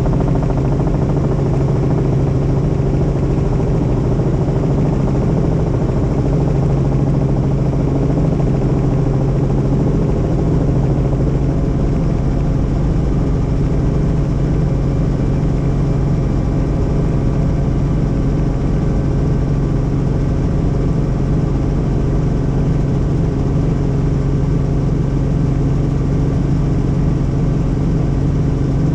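Helicopter in flight: steady engine and rotor noise with a constant low hum and rumble.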